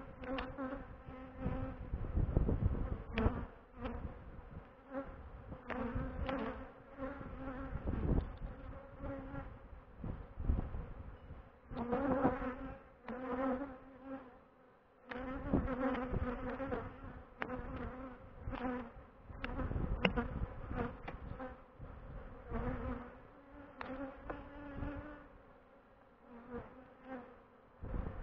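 Honeybees buzzing around the microphone as a hive is opened and worked, the hum swelling and fading again and again as bees fly close past. Scattered knocks and clicks come through it, along with a fluctuating low rumble.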